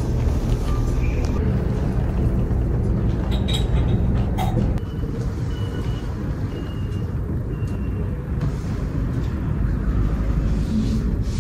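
Street traffic: a steady low rumble of passing vehicles, with a few short high beeps about halfway through.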